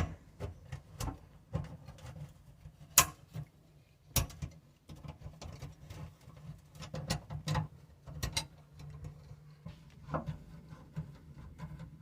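Irregular metallic clicks and clinks as a garbage disposal's mounting ring is spread and worked onto the sink flange, with two louder knocks about three and four seconds in, over a steady low hum.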